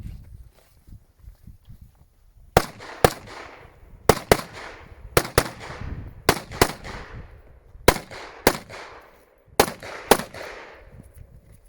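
Semi-automatic rifle fired in pairs of quick shots, six pairs about a second apart starting a couple of seconds in, each shot trailing off with an echo: double taps on targets during a practical-shooting stage.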